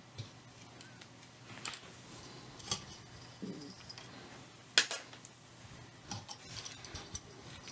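Small handling noises from removing the old dial cord from a Philips RF8 radiogram chassis: scattered light clicks and rattles of metal parts, with one sharp click a little under five seconds in.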